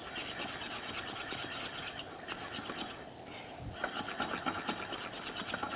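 Stirring of a starch-thickened cream in a pot, with the utensil scraping and clicking against the pot in a fast, even rhythm. There is a short pause about three seconds in.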